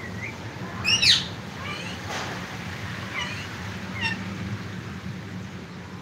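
Cockatiel giving short whistled chirps: a louder one that slides up and down about a second in, then a few fainter chirps.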